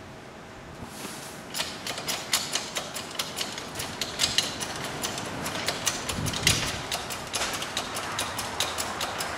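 Hydraulic shop press being hand-pumped to bring its ram down onto the socket that sits on a new wheel bearing, making a run of sharp, irregular clicks several times a second that starts about a second and a half in.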